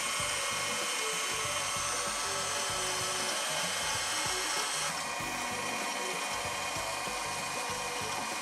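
Electric stand mixer running steadily, its motor whining as it beats eggs into a butter-and-flour cake batter; the sound turns a little duller about five seconds in.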